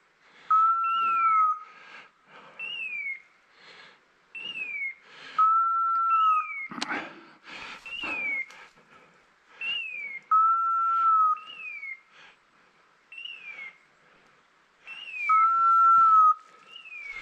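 Electronic beeper collar on an English setter, repeating a short falling chirp about every second and three-quarters, with a longer steady tone about every five seconds. Crackling of footsteps pushing through dry brush runs underneath, with one sharper crack about seven seconds in.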